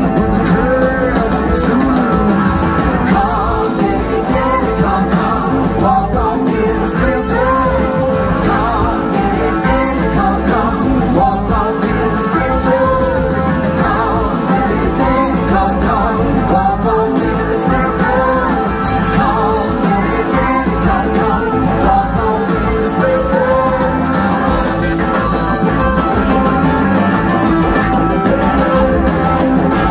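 A large blues-rock band playing live with singing: drums, electric guitars, keyboards and a horn section, steady and loud.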